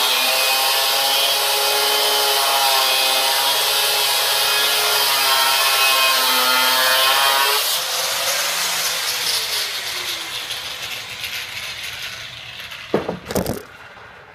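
Angle grinder cutting through steel all-thread rod: a loud, steady grinding whine that wavers under the cut for about eight seconds. Then the cut finishes and the disc coasts down with a falling whine that fades over several seconds, and two sharp knocks come near the end.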